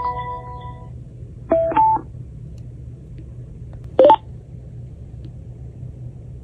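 Small wireless speaker's electronic prompt tones: a start-up chime ringing out, a quick two-note rising beep about one and a half seconds in, and a single short beep about four seconds in that signals it has connected to the phone by Bluetooth. A low steady hum lies underneath.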